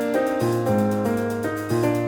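Background music: a piano or electric piano playing a gentle melody over a steady bass line.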